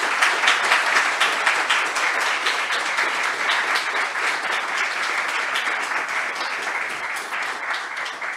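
Audience applauding: dense, steady clapping from a room full of people, thinning a little near the end.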